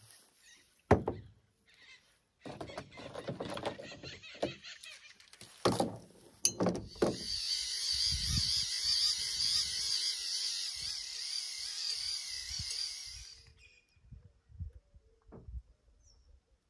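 Small handheld electric fuel pump running steadily for about six seconds, moving nitro fuel from a jar into a 1/8-scale nitro RC monster truck's tank, then cutting off. Before it come a few sharp knocks and handling clatter.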